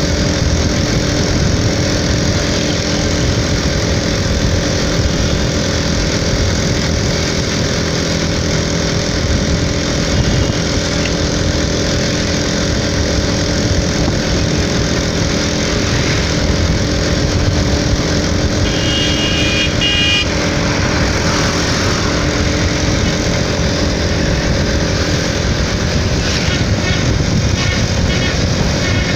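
Motorcycle engine running steadily at cruising speed, heard from the bike itself under heavy wind and road noise. A vehicle horn toots briefly about two-thirds of the way through.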